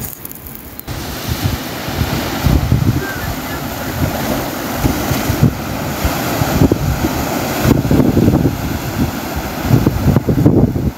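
Sea waves breaking and washing in around shoreline rocks, with wind buffeting the microphone in gusts; it starts about a second in.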